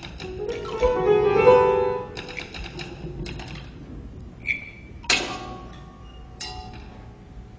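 Instrumental music of struck, ringing pitched notes: a quick run of notes in the first two seconds, then two sharper strikes about five and six and a half seconds in, each left to ring.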